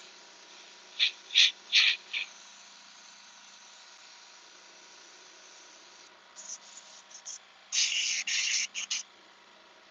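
Iwata Eclipse airbrush spraying in short hissing bursts as the trigger is worked: four quick puffs about a second in, then a run of longer, louder sprays near the end.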